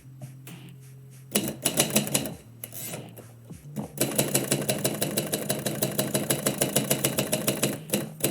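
Typewriter keys striking: a short flurry of keystrokes a little over a second in, then a steady run of typing at about five strokes a second from about halfway through.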